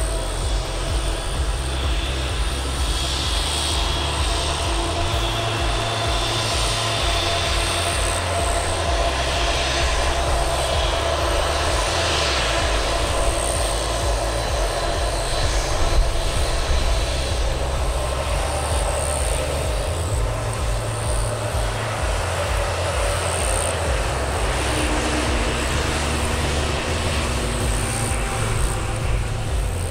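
Airbus A320neo's Pratt & Whitney PW1100G geared turbofan engines running, a steady jet noise with a deep, uneven rumble underneath and no rise or fall in level.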